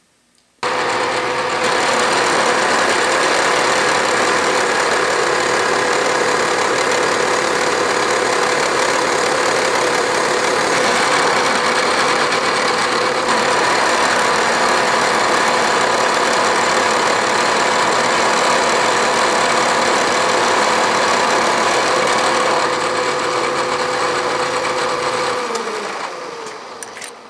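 Milling machine spindle running a carbide-insert face mill through a light finishing cut (about ten thousandths) across a metal block: a steady machine whine over dense cutting noise. It starts abruptly about half a second in, and near the end the spindle is switched off and winds down, its pitch sliding lower as it stops.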